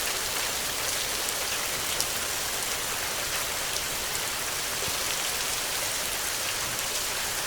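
Heavy rain falling steadily: a dense, even hiss with scattered raindrop ticks.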